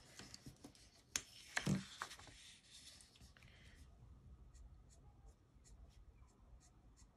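Copic alcohol marker flicking short strokes across paper, faint and scratchy, in a quick run of small strokes in the second half, with a couple of louder knocks in the first two seconds.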